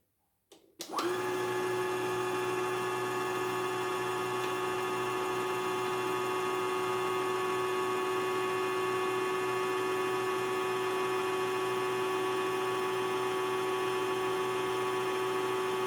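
Portable computerized embroidery machine winding thread onto a bobbin, its winder spinning with a steady high motor whine that starts about a second in.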